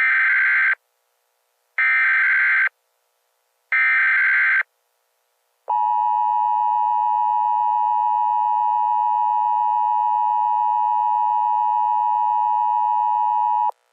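Emergency Alert System header: three short bursts of buzzing data tones about two seconds apart, then the two-tone EAS attention signal held steady for about eight seconds. Together they mark the start of an emergency alert message.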